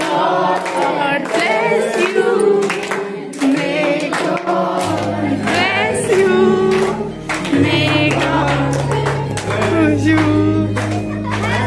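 A group of voices singing together, with hand-clapping throughout. A deep, steady bass joins about five seconds in.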